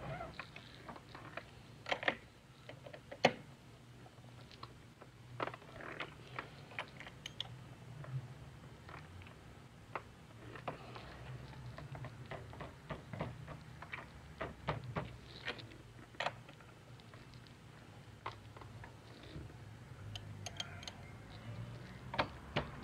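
Scattered light metallic clicks and taps of a ratchet wrench and socket tightening the fork-top suspension preload adjusters on a Yamaha R3, irregular and in short clusters over a faint low hum.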